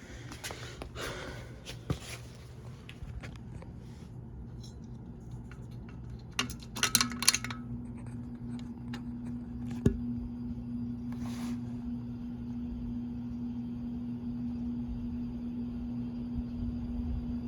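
Mainstays hugger ceiling fan starting up: a few clicks, then a cluster of pull-chain switch clicks, after which the motor's steady hum comes in and slowly grows as the blades spin up. One more sharp click comes near the middle.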